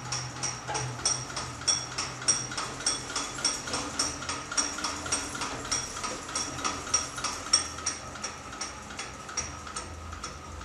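Apron handwheel of a freshly reassembled VDF V630 lathe being spun by hand, the saddle traversing the bed with regular clicking about three times a second.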